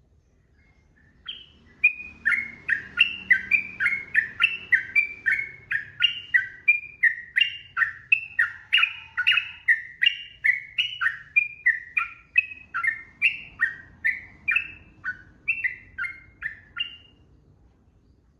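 Sooty-headed bulbul (trucukan) singing one long, unbroken run of quick warbled notes, about two to three a second. The run starts about a second in and stops shortly before the end.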